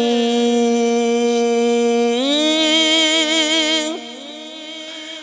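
Male naat singer holding a long sung note, stepping up in pitch about two seconds in into a wavering, ornamented hold. The voice then drops away about four seconds in, leaving a fainter held tone.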